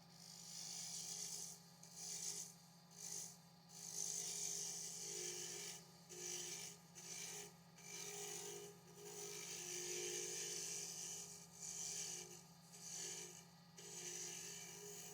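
Abrasive rubbing on wood, heard as about a dozen rasping strokes of uneven length with short pauses between them, over a faint steady hum.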